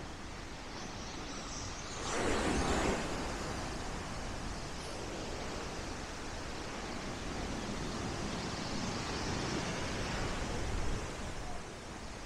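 Black Sea waves washing onto the shore in a steady surf, with one louder wave breaking about two seconds in.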